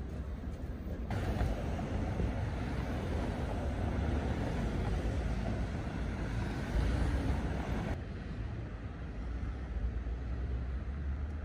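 Street traffic: cars and a city bus passing on a busy road, with a steady low rumble. The sound changes abruptly about a second in and again near eight seconds, where the scene cuts.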